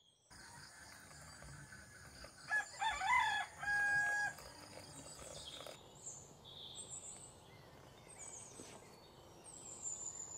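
A rooster crowing once, ending on a long held note, over a steady high insect buzz. After the buzz stops, small birds chirp.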